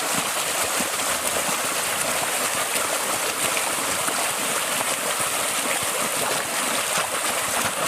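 Continuous splashing and churning of water as several people lie on their backs and kick their feet.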